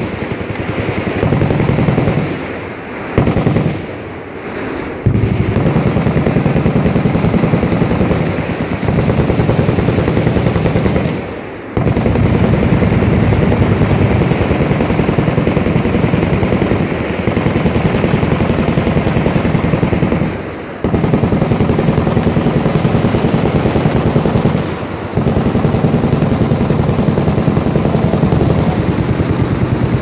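Sustained full-auto machine-gun fire from the firing line: a dense, continuous rattle of shots that drops off briefly a few times before picking straight back up.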